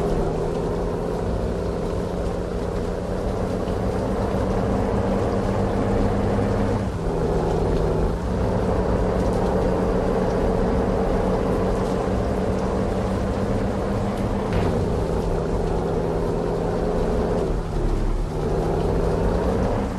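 Heavy truck's engine running steadily under load, a droning note whose pitch dips and shifts briefly a few times, about seven, eight, fourteen and eighteen seconds in.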